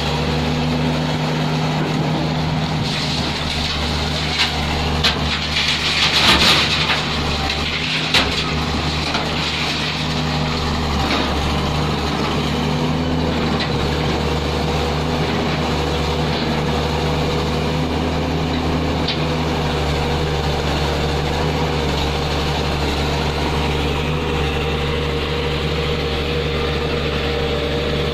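Heavy excavator's diesel engine running steadily under load, with a burst of rattling and knocks about four to eight seconds in as stone ballast is scooped and dumped.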